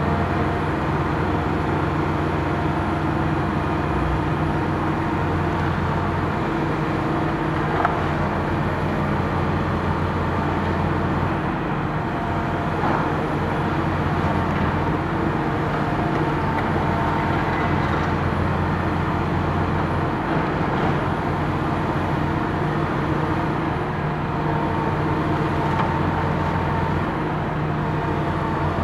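Diesel engines of Hitachi demolition excavators, a ZX350-3 high-reach machine and a ZX225USR, running steadily under hydraulic work, the engine note shifting a few times as the long boom moves. A few short knocks of debris, the clearest about eight seconds in.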